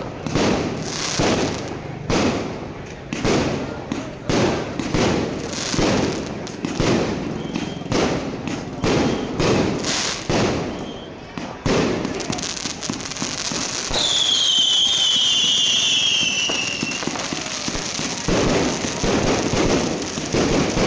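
Fireworks going off in a rapid string of bangs, one or two a second. About twelve seconds in the bangs give way to a steady hiss with a high falling whistle, then the bangs start again near the end.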